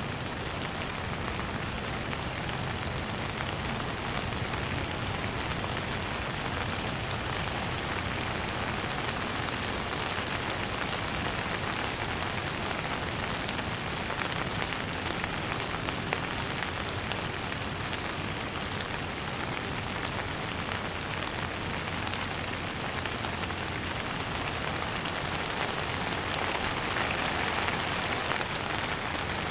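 Steady rain falling on a surface, a dense even patter of raindrops, swelling a little near the end.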